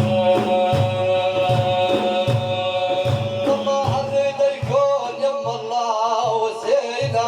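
Arabic religious praise singing (madih) by a male singer: a long held note, then a wavering, ornamented melodic line, over a steady hand-drum beat of about two strokes a second.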